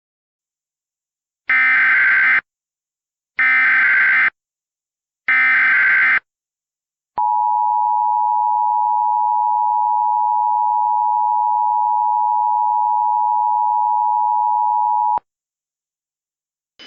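Emergency Alert System header: three short, equal bursts of buzzing digital data tones, about a second each, followed by the two-tone EAS attention signal held steady for about eight seconds before cutting off sharply. Together they mark the start of a new emergency alert, here a tornado warning.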